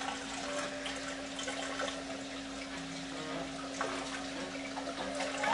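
Aquarium filtration running: a steady rush of circulating water with a constant low hum.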